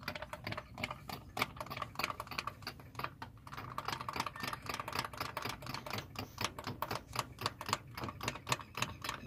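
Rapid, irregular light metallic clicking and tapping, several clicks a second, from hand work on a diesel injection pump's fuel line fittings.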